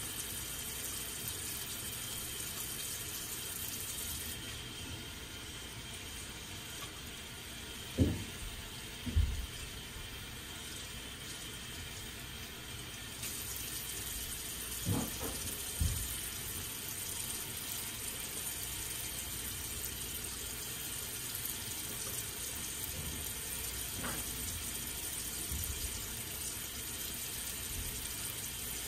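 Tap water running steadily into a bathroom sink during hand washing, broken by a few short knocks, the loudest two close together about a third of the way in.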